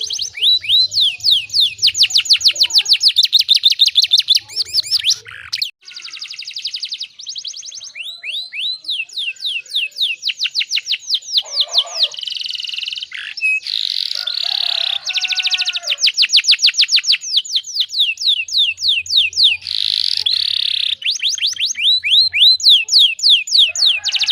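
Domestic canary singing a long, loud song of rapid rolling trills, each phrase a fast run of repeated sweeping notes, with brief breaks between phrases.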